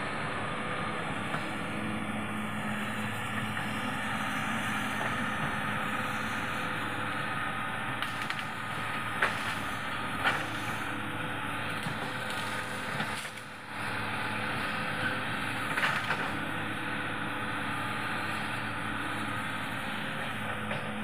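Hitachi 210F excavator's diesel engine running steadily under work, with a few sharp cracks of wood snapping as trees are pushed over, around eight to ten seconds in and again near sixteen seconds.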